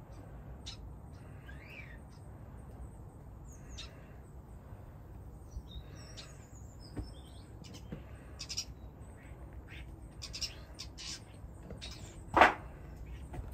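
Small birds chirping here and there over a low steady rumble, with one short loud burst near the end.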